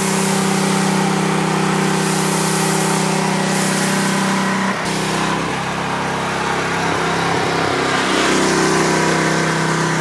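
Small engine of a gas-powered pressure washer running steadily, with the hiss of spray. The sound shifts abruptly about five seconds in.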